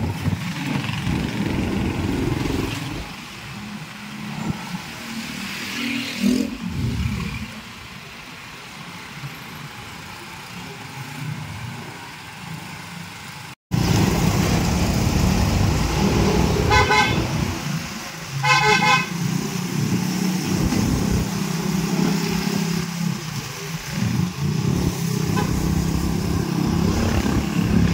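A vehicle running along the road with steady engine and road noise, and a horn tooting two short blasts about a second and a half apart, a little past the middle.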